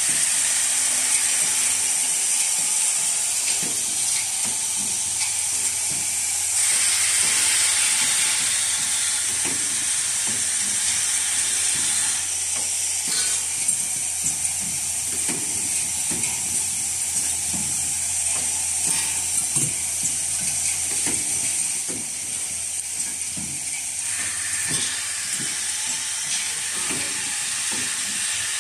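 Automatic wire-hook welding machine running: a steady high hiss with irregular clacks and knocks from its mechanism, coming several times a second at times.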